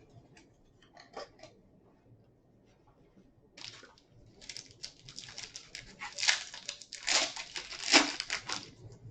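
Packaging crinkling and tearing as a trading-card mini box is opened: a few soft clicks at first, then several seconds of rustling and tearing, loudest about six to eight seconds in.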